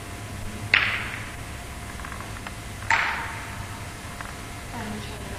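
Two sharp tennis racket strikes on a ball, about two seconds apart, each trailing off in a long echo of an indoor court hall, with a couple of faint light taps between them.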